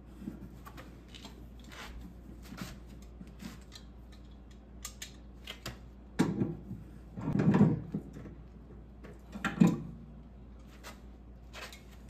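Small metallic clicks and knocks of a brass pipe elbow being threaded on and tightened with a wrench on a copper water line. There are a few louder clunks in the second half.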